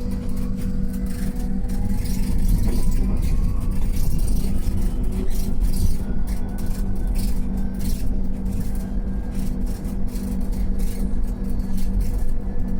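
Mercedes-Benz eCitaro G fully electric articulated bus driving, heard from on board: its electric drive whines in rising glides as it pulls away and speeds up, over a steady hum and low road rumble with rattles and knocks from the body.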